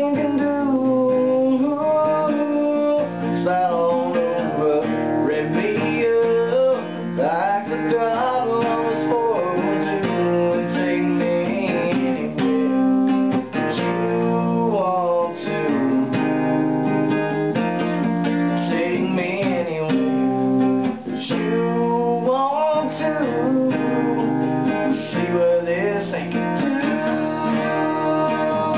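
Cutaway acoustic guitar strummed and picked in a steady rhythm, playing a country-rock song.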